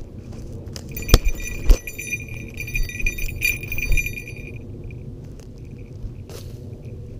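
A falconry bell on a goshawk jingling rapidly for about three and a half seconds, starting about a second in, with two sharp knocks near its start. Low rustling and scuffing through dry brush underneath.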